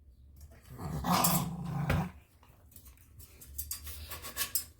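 A Havanese dog growling for about a second and a half, followed by a series of light clicks and rattles.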